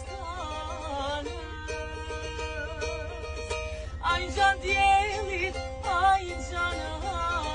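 A small long-necked lute plucked in a lively folk melody, with several voices singing along. The singing fades for a few seconds, then comes back loudest in the second half.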